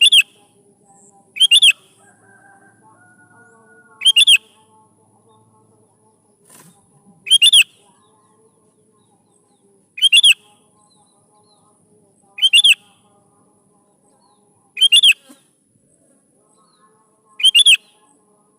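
Sooty-headed bulbul (kutilang) calling: a short, loud, ringing phrase repeated eight times, about every two and a half seconds.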